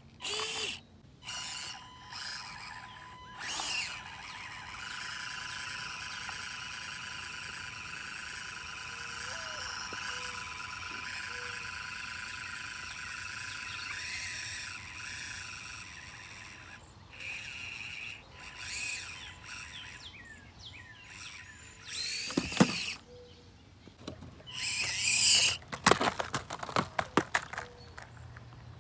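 Axial SCX24 micro RC crawler driving: its small electric motor and gearbox whine steadily with a thin high tone. Near the end comes a quick run of sharp plastic clatters and knocks as the little truck tumbles off a plywood ramp.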